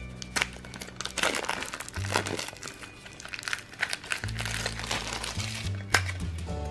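A thin plastic wrapper crinkling and crackling as fingers tear it open and peel it off a small toy, dense for the first few seconds and then thinning out. Background music with a steady bass line plays throughout and comes up more strongly in the second half.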